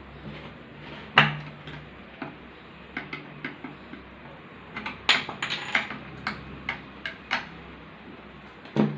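Irregular clicks, clinks and knocks of metal parts and tools being handled while an electric iron is taken apart, with a sharp knock about a second in and a quick flurry of clicks around five to six seconds in.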